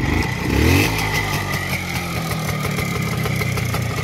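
Minsk 125 cc two-stroke single-cylinder motorcycle engine idling, after a brief rev that rises in pitch about half a second in.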